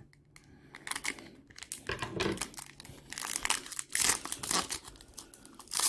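A trading-card pack wrapper being torn open and crinkled in the hands: a string of irregular crackling rustles, loudest about four seconds in and again near the end.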